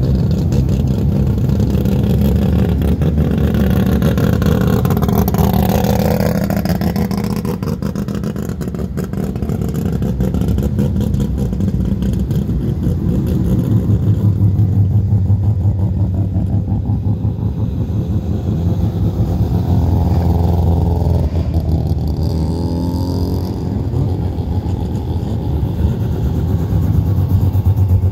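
Mazda rotary-engined cars driving slowly past one after another in a parade, their rotary engines running at low revs with a rapid pulsing note that swells as each car passes. About five seconds in, one engine's pitch sweeps down and back up.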